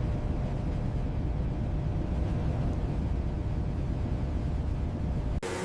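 Steady low rumble of a vehicle engine running, with a faint steady hum over it. It cuts off suddenly near the end.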